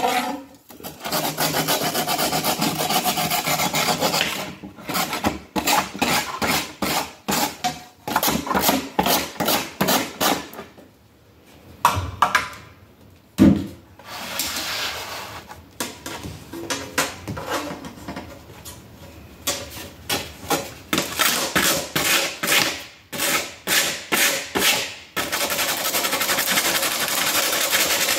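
Handsaw cutting a door sweep in a plastic miter box, back-and-forth strokes in several spells with brief pauses between. There is one sharp knock about halfway through.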